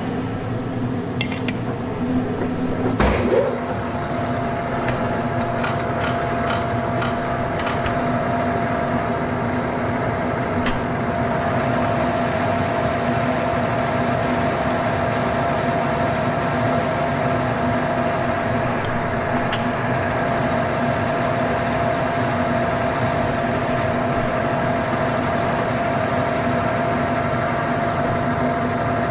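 Turret lathe running steadily with a low hum and a held tone. In the first few seconds come several metal clinks from the tooling, with a louder clank about three seconds in.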